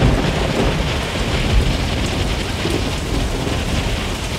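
Hailstorm sound effect for the plague of hail: a steady hiss of pelting precipitation with low thunder rumbling, heaviest in the first second and a half.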